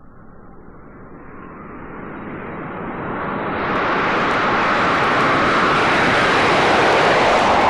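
Douglas DC-8 jet airliner taking off: the engine roar swells over about four seconds, then holds loud, with its pitch sliding slightly lower near the end as the aircraft passes.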